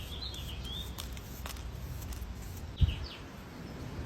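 Birds chirping outside over a steady low background rumble, with a single dull thump about three seconds in.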